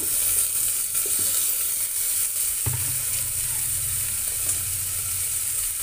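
Freshly washed, wet rice sizzling in hot oil with whole spices in a pressure cooker, a steady hiss with a few light clicks. A low hum sets in about halfway through.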